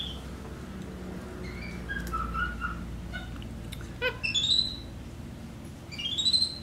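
Capuchin monkey calling in short, high-pitched chirps and peeps, several of them rising sharply in pitch, the clearest about four seconds in and again near the end.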